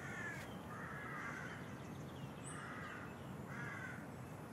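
Crows cawing: four faint calls about a second apart, over a low steady outdoor background.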